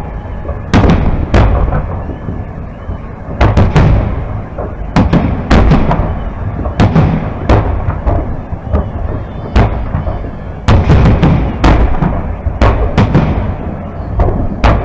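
Aerial fireworks shells bursting overhead: loud booms about every second, often in quick groups of two or three, with rumbling between.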